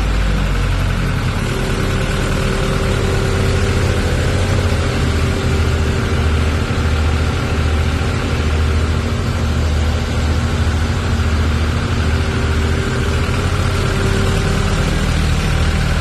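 Montana 4320 tractor's diesel engine idling steadily, with a low rumble.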